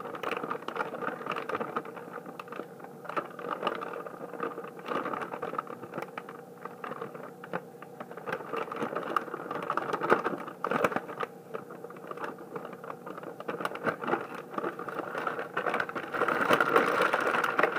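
Hands crumbling a clumped block of shredded cheese, giving a steady run of small crackles, rustles and taps that grows louder and denser near the end.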